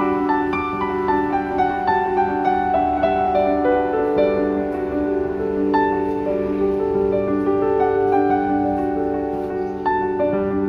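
Instrumental background music led by piano, a slow run of notes over held chords.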